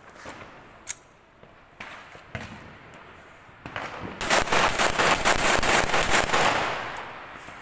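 A few scattered sharp bangs, then a dense, rapid volley of cracks lasting about two and a half seconds before it fades. This is New Year celebration noise from a firecracker string or rapid gunfire.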